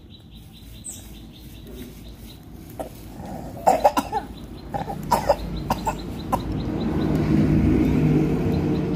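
Baby otter suckling milk from a feeding bottle: a run of short, sharp wet clicks and smacks in the middle. A steady low hum then grows louder toward the end.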